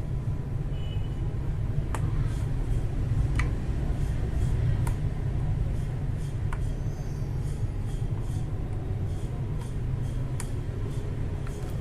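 A few scattered, irregular light clicks from Akko Matcha Green keyboard switches being pressed one at a time as a test, over a steady low hum.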